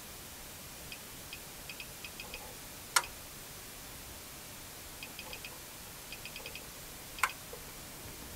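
Off-camera switches and knobs on test gear being worked: runs of small quick clicks as a selector is turned through its positions, with two sharp, louder single clicks, one about three seconds in and one near the end.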